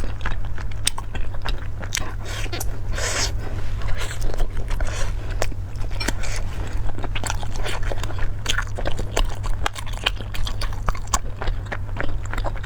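Close-miked eating: a person chewing and biting food, with many irregular sharp clicks and crunches and a short hissing burst about three seconds in.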